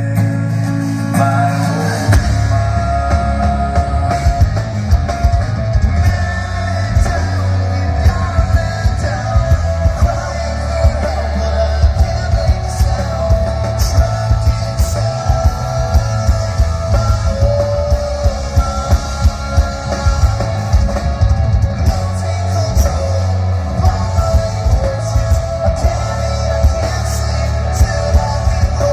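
Rock band playing live: drum kit, electric guitar and bass with singing. The kick and bass come in heavily about two seconds in.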